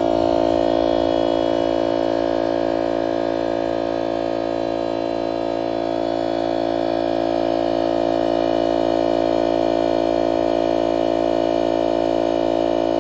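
DeWalt 60V cordless 2.5-gallon air compressor running steadily at a constant pitch as its pump refills the tank after air was drawn off.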